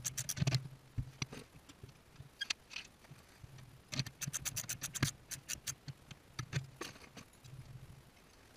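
Socket ratchet clicking in quick runs, about ten clicks a second, as it is swung back and forth to tighten the bolt of a gas tank strap. A low hum comes and goes underneath.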